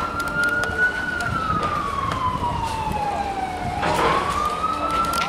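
A siren wailing in a slow up-and-down cycle. It holds high, falls slowly over about three seconds, then climbs again about four seconds in, with a few sharp clicks over it.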